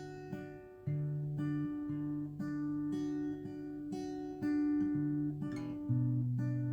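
Background music of acoustic guitar, plucked and strummed, moving through a slow sequence of held chords.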